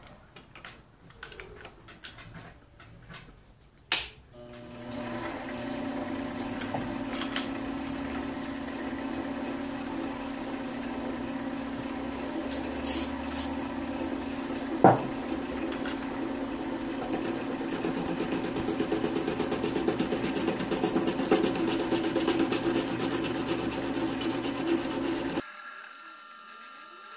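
Mini metal lathe: a few clicks as the tool post is set, a sharp click about four seconds in, then the motor runs with a steady hum as the chuck spins a threaded rod. Through the second half a rapid scraping rises over the hum as the cutting tool works the end of the rod, and the sound cuts off suddenly near the end.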